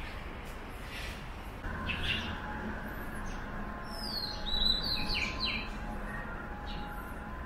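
A bird chirping a quick run of short, falling high notes about four to five seconds in, over a steady low background hum.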